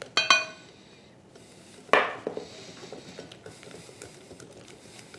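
Metal clinking on a glass mixing bowl with a brief ringing tone, a second sharp knock about two seconds in, then a wire whisk stirring batter quietly in the glass bowl.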